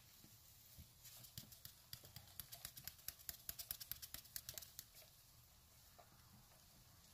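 Plastic shaker canister of supplement powder being shaken over a plastic cup of superworms to dust them: a quick, quiet run of light clicks, about seven a second, starting about a second in and stopping about five seconds in.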